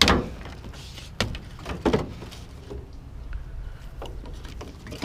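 A few thunks and knocks of scrap being handled at a truck, the first the loudest and two more within the next two seconds, over a low steady hum.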